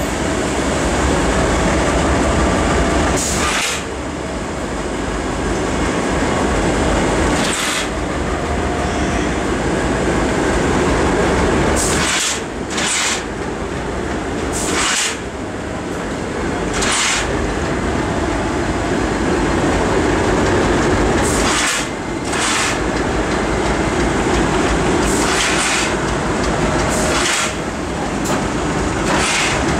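2M62U twin-section diesel locomotive rolling slowly past with its two-stroke 14D40 diesel engines running: a loud, steady engine rumble. About ten short hisses cut through at uneven intervals.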